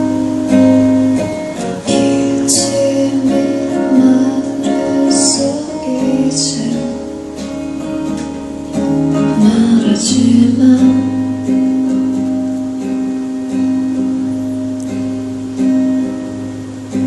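Acoustic guitar strummed in a live song, with a singer's voice over it.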